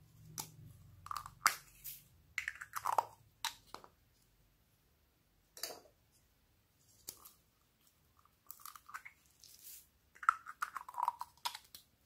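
Small foam beads crackling and rustling as bead-filled mesh stress balls are squeezed and emptied onto slime. The sound comes in irregular crunchy bursts with a few short squeaks, with quiet gaps between.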